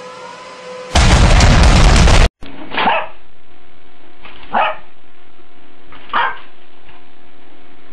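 A loud, harsh noise for about a second, then a dog barking at a printer: three single barks about a second and a half apart, with a fourth near the end, over a faint steady hum.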